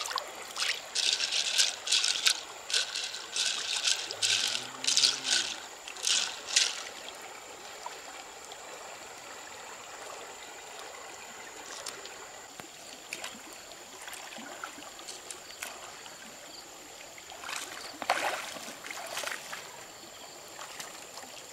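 Shallow river running over stones, with a quick run of splashes over the first several seconds and a few more near the end.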